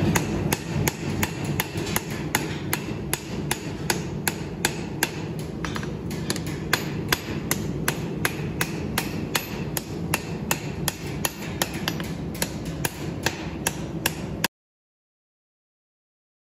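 Hand hammer striking a red-hot pattern-welded steel spear head on an anvil, about three blows a second, with a ring to each blow, as the blade is forged to shape. A steady low rumble runs beneath, and the sound cuts off suddenly about fourteen seconds in.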